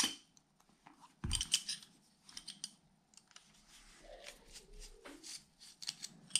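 Small metal parts of an RC crawler beadlock wheel clicking and clinking as they are handled, with a 2.5 mm hex driver set to the ring screws. A cluster of sharp clicks comes about a second in, then a few lighter ticks, with quieter handling noise between.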